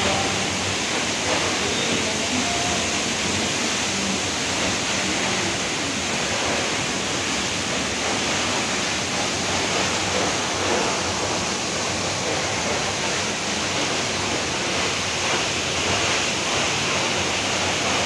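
Steady rushing noise of falling water, even and unbroken throughout.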